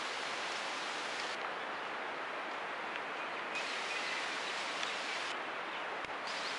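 Steady outdoor background noise, an even hiss with no engine or train sound standing out, and a few faint high chirps about halfway through.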